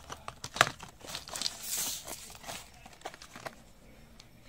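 Small glass nail polish bottles clicking and knocking against a clear plastic box as they are handled and set into it, with the plastic case rustling and crackling. A few sharp clicks, the loudest about half a second in.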